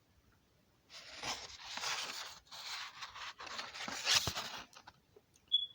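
Rustling, scraping noise in several stretches lasting about four seconds, with a few sharp clicks, followed by a brief high beep near the end.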